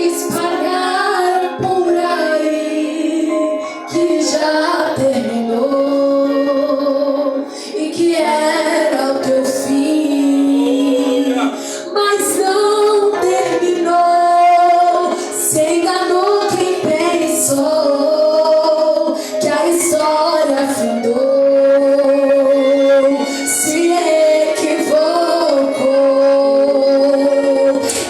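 A woman singing a worship song with instrumental accompaniment, her held notes bending and sustained.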